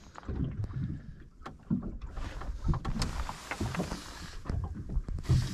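Water slapping against a small boat's hull, with wind on the microphone and irregular knocks against the boat. A hissing stretch runs about two to four seconds in.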